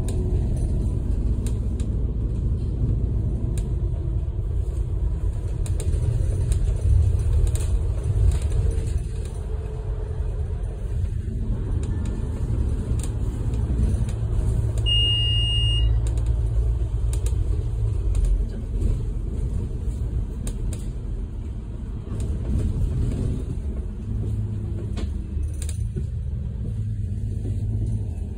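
Double-decker bus on the move, heard from inside on the upper deck: a steady low engine and road rumble. A short electronic beep sounds about halfway through.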